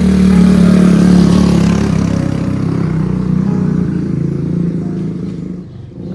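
Motor vehicle engine running close and loud at a steady pitch. It is loudest about a second in and fades over the following seconds.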